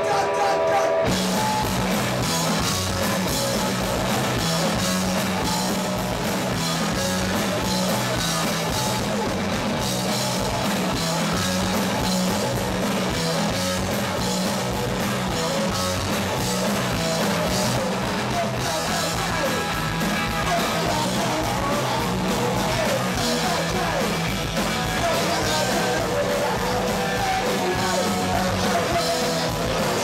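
Punk rock band playing live: guitars, bass and drums at full volume, the whole band coming in about a second in with a driving, repeating bass line.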